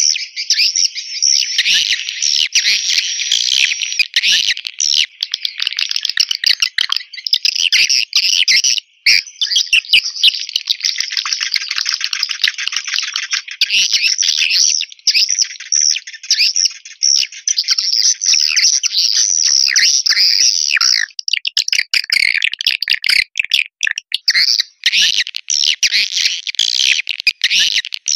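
Swiftlet (walet) lure call track: a dense, continuous chatter of rapid high chirps and twitters, with a short break about nine seconds in. It is the call sound played to draw swiftlets into a bird house.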